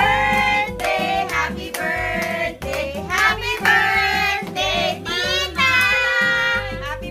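A song sung over a music backing track, with hands clapping along.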